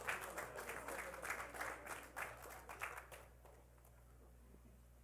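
Congregation clapping, with a few voices mixed in, fading out about three seconds in and leaving a faint steady hum.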